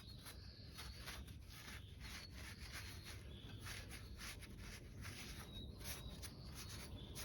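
Faint, irregular rubbing strokes as grime is wiped off the cast-iron parts of an antique CS Bell No. 2 hand grain mill.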